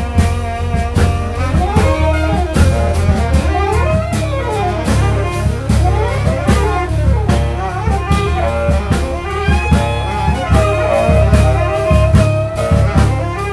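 Small jazz band playing live: a saxophone plays quick runs that swoop up and down, over piano, bass and drum kit.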